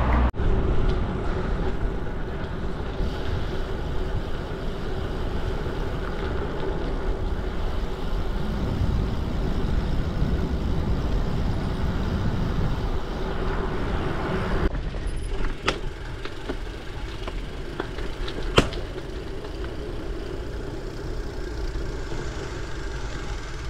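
Riding noise of a gravel bike on 650×47c WTB Byway tyres: steady tyre rumble and wind rushing over the helmet- or bar-mounted action camera's microphone, with a faint steady hum that changes about two-thirds of the way through. A few sharp clicks or knocks follow in the second half.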